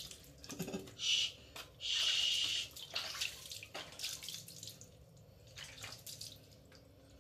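Water poured by hand over a kitten during a bath, splashing onto its fur and the tiled floor: two main pours, about a second in and from about two seconds in, followed by lighter splashes and drips.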